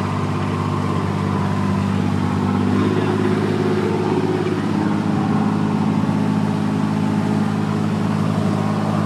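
A boat's engine drones steadily, its pitch shifting slightly up about three seconds in.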